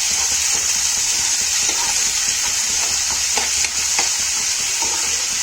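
Chopped onion, ginger, garlic and green chilli frying in hot oil in a frying pan as the tadka for a curry: a steady sizzle, with short scrapes every second or so as the mix is stirred.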